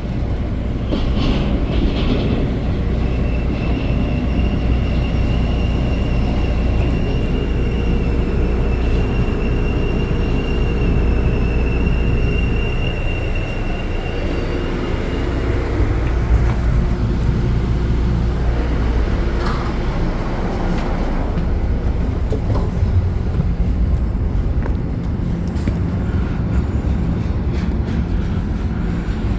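Train rolling past with a heavy steady rumble, and a thin high wheel squeal that holds for about twelve seconds from a few seconds in.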